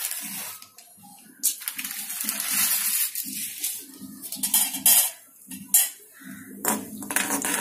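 A spoon clinking and scraping against a metal kadai as charoli (chironji) seeds go into hot ghee, with a few sharp clinks in the middle; a steady hiss sets in near the end.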